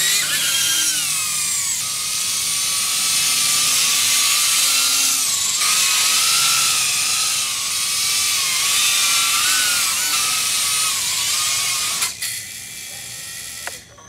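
Small ducted-prop FPV quadcopter flying: a high motor whine whose pitch rises and falls with the throttle, over a rushing hiss of prop wash. It cuts out about twelve seconds in as the quad lands.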